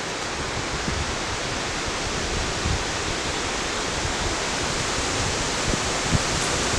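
Steady, even rushing noise outdoors, with a few soft thuds and rustles as people push through long grass and under a fallen tree trunk.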